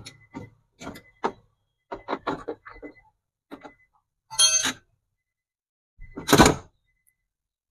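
Metal tools and the power window regulator knocking inside a car door shell as the regulator is unbolted: a run of short taps and clicks, then a ringing metallic clink about four and a half seconds in and a loud, deep clunk about two seconds later.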